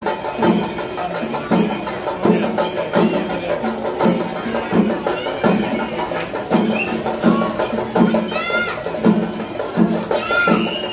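Loud percussion-led festival music with a steady beat of strikes about every 0.7 seconds and a jingling metallic layer. In the last few seconds come short pitched calls that rise and then fall.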